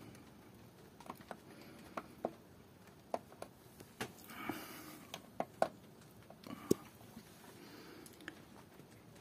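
Faint, irregular ticks and clicks, about a dozen spread over several seconds, against quiet room tone.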